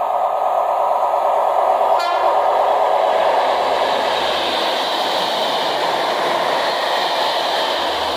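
Colas Rail test train, worked by Class 73 locomotives, passing through the station at speed: a loud, steady rush of wheels and running gear on the rails, with one brief sharp sound about two seconds in.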